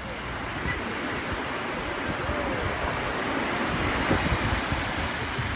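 Surf washing up onto the shore, swelling louder about four seconds in, with wind buffeting the microphone.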